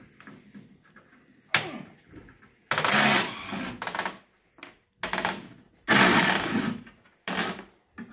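Cordless drill run in several short bursts, the longest about a second, working the bolts along the lid flange of a cast iron coffin.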